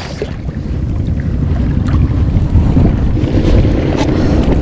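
Wind buffeting the microphone over water slapping at an inflatable boat, with a hooked queenfish splashing at the surface beside the boat.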